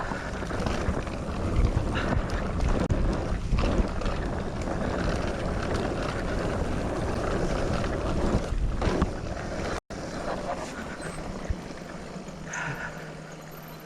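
Wind buffeting the camera microphone and tyres rattling over a dirt trail as an electric mountain bike is ridden fast. About ten seconds in the sound cuts off sharply and goes on quieter, with a steady low hum.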